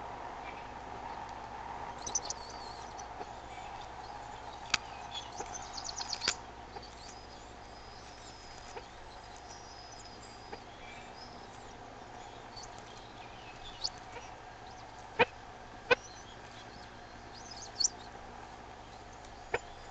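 Short, high bird chirps in a few brief clusters over a steady outdoor background hum, with several sharp clicks.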